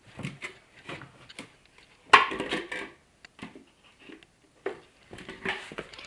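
Scattered light knocks, clicks and rustling, with a louder clatter about two seconds in.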